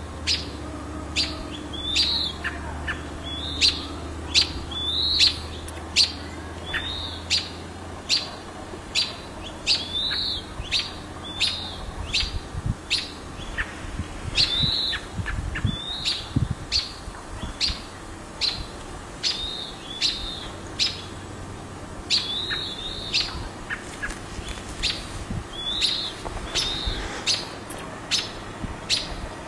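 Small songbirds giving short, sharp alarm chirps over and over, about one to two a second, as they mob a red-tailed hawk near their nest.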